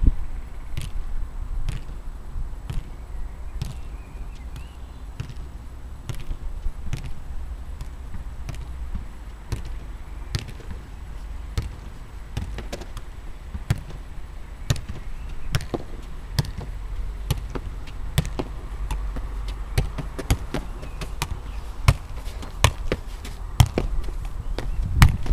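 A football being juggled: a string of dull thuds as the ball is struck up off foot, knee and thigh again and again, about one to two touches a second and coming faster in the second half, over a low steady rumble.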